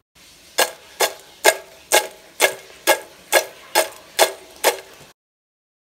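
A steady ticking, about two ticks a second and ten in all, over a faint hiss, which cuts off abruptly near the end.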